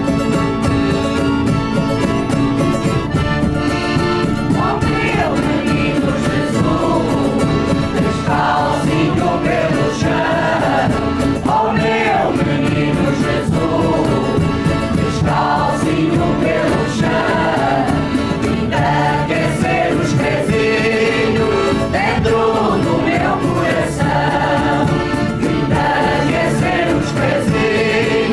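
A group of voices singing together over a steady instrumental accompaniment; the singing comes in about four seconds in.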